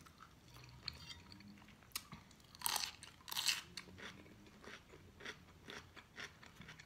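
Close-up crunching bites into a raw Persian cucumber, two loud crunches a little under three seconds and about three and a half seconds in, then quieter chewing with small crunches.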